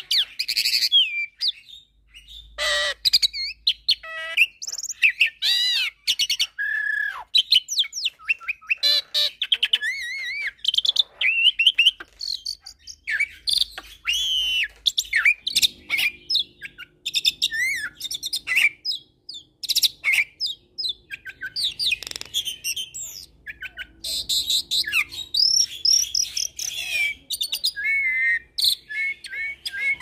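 Hybrid Nias × Suren starling (jalak) singing continuously: a fast, varied run of slurred whistles, trills, chirps and clicks with mimicked phrases worked in.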